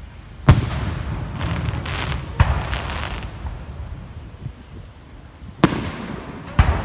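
Aerial fireworks shells bursting: four sharp bangs, each followed by a low rolling rumble, with a spell of hissing crackle between the first two.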